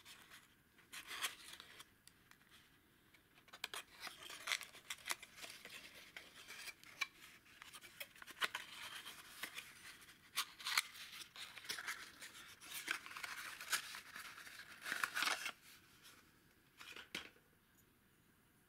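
Small cardboard valve box being handled and opened by hand: an irregular run of short card clicks, scrapes and rustles, with one last brief rustle near the end.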